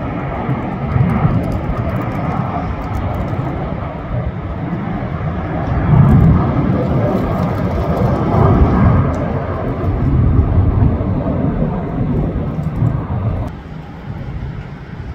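Sun Country Airlines Boeing 737's jet engines at takeoff power during its takeoff roll and lift-off: a loud, steady, deep rumble that swells to its loudest about six seconds in. The sound drops off suddenly near the end.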